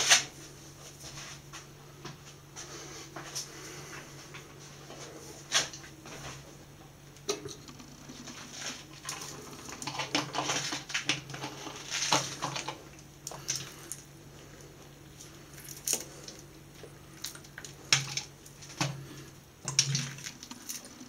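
Scattered handling noises: light knocks, clicks and rustles of objects being moved about a ceramic washbasin, with a sharp knock right at the start. A low steady hum runs underneath.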